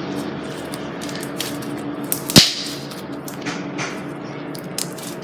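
Slime being stretched and squished by hand, giving a run of small sticky clicks and crackles with one sharp snap about two seconds in.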